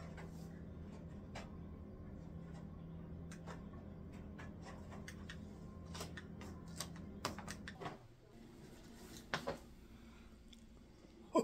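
Faint steady low hum that cuts off about eight seconds in, with scattered light clicks and taps of small objects being handled, most of them in the second half.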